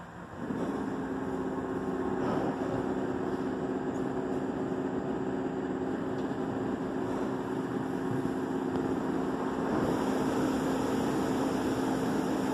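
Christ Genius rollover car-wash gantry running: a steady motor hum comes in about half a second in and holds over the constant wash of water spray and spinning brushes.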